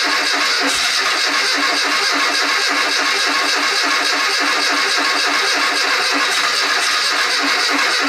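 Austin Metro's A-Series four-cylinder engine cranking on its starter motor with a fast, even beat, trying to fire but not catching. The cranking stops abruptly at the very end.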